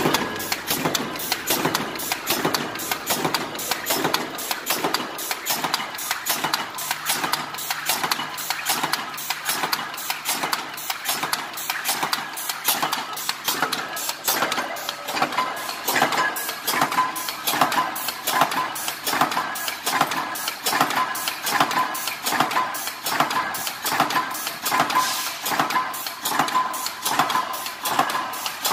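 Razor wire machine's punch press stamping razor barbed tape out of steel strip, striking in a fast, even rhythm of sharp mechanical strokes over a steady machine hum.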